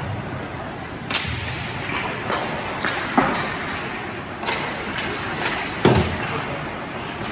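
Sharp cracks and knocks at irregular intervals in an ice rink, the strongest about a second, three seconds and six seconds in, over a steady hubbub: hockey sticks striking the puck and the puck hitting the boards.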